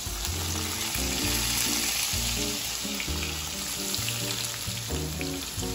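Chopped onion sizzling as it fries in hot oil in a non-stick frying pan, with background music playing under it.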